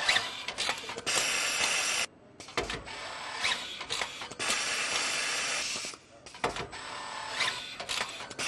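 Car assembly-line machinery: clicking and whirring mechanisms with stretches of steady hiss, cutting in and out abruptly several times.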